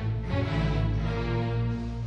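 Background music with held chords over a steady low note.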